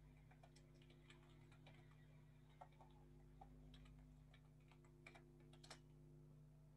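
Faint computer keyboard typing: scattered soft key clicks, irregular and a few per second, over a low steady electrical hum.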